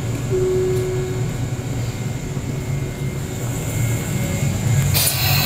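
Electric commuter train standing at the platform with a steady low hum, a brief tone about half a second in, and a sharp hiss near the end.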